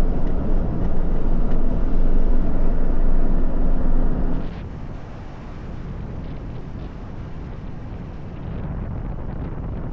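Jeep Gladiator driving, with a steady rumble of road and engine noise and some wind. The level drops suddenly about four and a half seconds in, then the rumble goes on more quietly.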